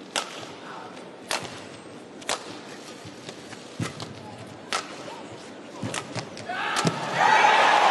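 Badminton rackets striking a shuttlecock in a rally, about eight sharp hits a second or so apart. Near the end, as the point is won, an arena crowd starts cheering and applauding.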